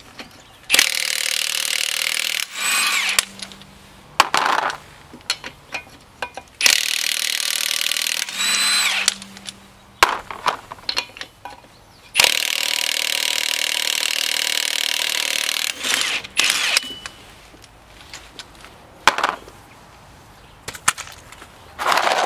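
Milwaukee cordless impact wrench hammering the van's lug nuts loose in four runs, the longest about three and a half seconds, with clinks of the socket and nuts between them. The nuts are on tighter than expected.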